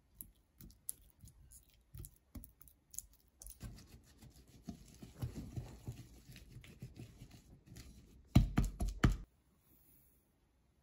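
Balloon whisk with coated wires working soft butter in a glass mixing bowl: scattered light clicks, then a denser stretch of scraping and squishing. A few loud knocks about eight and a half seconds in.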